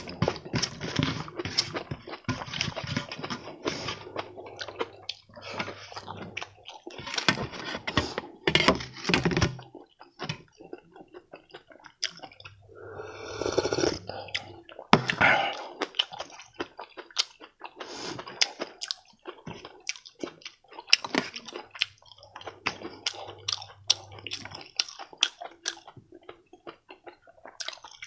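Close-miked chewing and mouth sounds of a person eating, with many sharp wet clicks and smacks.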